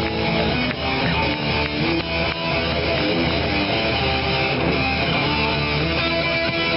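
Music with strummed guitar playing steadily.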